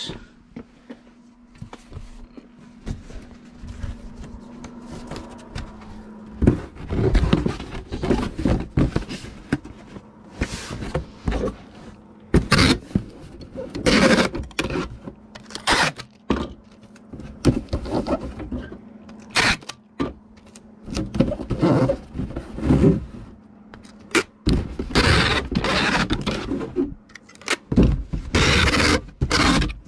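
Irregular thunks and scrapes of a cardboard shipping box and a plastic Nerf gun being handled and fitted together, with a faint steady hum during the first six seconds.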